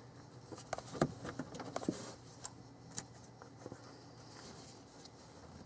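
Faint scattered clicks and light taps of fingers handling the hand-started bolts on a water pump, a few louder ticks among them.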